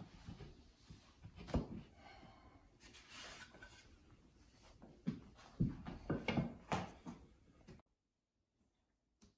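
Wooden knocks and scraping as wooden pegs and pine shelf boards are fitted into a wooden pegboard: one sharp knock, then a cluster of four or five knocks a few seconds later. The sound cuts off suddenly near the end.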